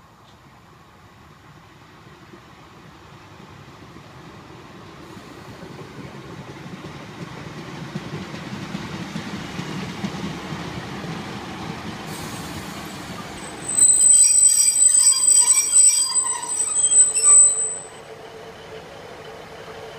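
A Class 150 Sprinter diesel multiple unit approaches with a rumble that grows louder as it runs in, then squeals loudly and piercingly for about four seconds as it brakes to a stop. Its engine is left idling with a steady hum.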